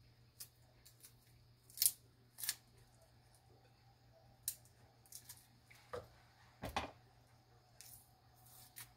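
Kitchen handling noises: a scattering of sharp clicks, taps and short scrapes from small utensils and containers, the loudest about two seconds in and a double knock near the seven-second mark.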